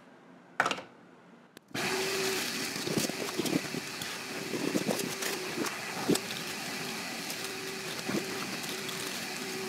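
A short knock, then a wet/dry shop vacuum switches on under two seconds in and runs steadily with an even motor hum, scattered ticks and rattles of debris being sucked up the hose.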